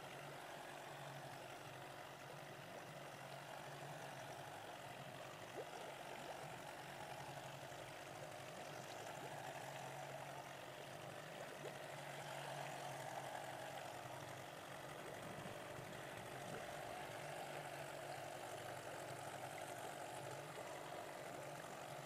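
Trailersailer's outboard motor running steadily under way at a constant speed, with an even rush of water and air alongside.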